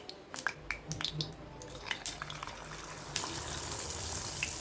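Batter-coated boiled egg pieces going into hot oil for egg 65: scattered crackles and pops, then a steady frying sizzle that sets in about three seconds in.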